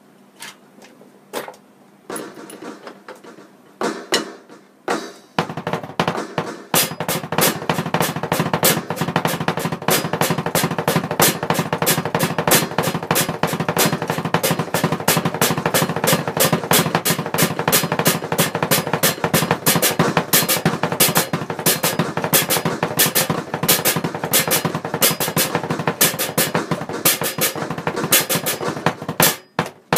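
Electronic drum kit played with sticks and bass-drum pedal: a few scattered hits, then from about five seconds in a fast, unbroken stream of strokes that stops just before the end, with double strokes on the bass-drum pedal.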